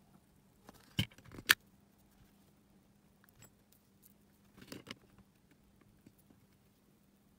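Small plastic clicks and rattles from handling a gum-stick battery's grey plastic casing against a white plastic housing: two sharp clicks about a second in, the second louder, then a short run of softer clicks near five seconds.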